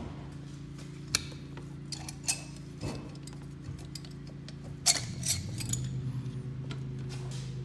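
Scattered metal clinks and knocks as the cylinder of an Arctic Cat 300 ATV engine is worked loose and lifted up off the piston, the loudest a little before the five-second mark, over a steady low hum.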